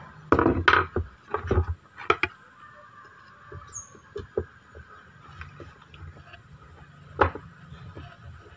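Screwdriver driving screws into the wooden handle scales of a knife: clicking and creaking, with a few loud knocks or scrapes in the first two seconds and another about seven seconds in.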